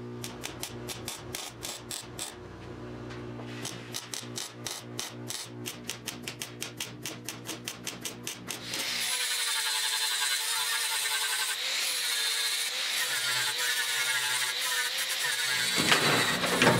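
MIG welder stitch-welding a steel repair patch: a rapid run of short arc bursts over the welder's steady hum, with a brief pause near three seconds. About nine seconds in, this gives way to an angle grinder grinding the welds on the sheet steel, a steady whine that wavers in pitch and gets louder near the end.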